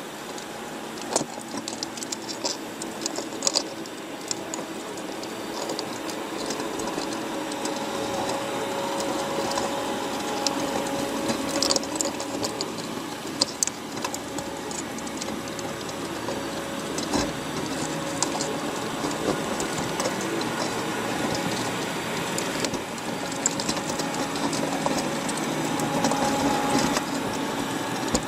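Underwater sound inside a wire crab trap: crabs clicking and scraping as they climb over the bait and the cage wire, a rapid irregular rattle of ticks over a steady watery wash with a faint low hum beneath.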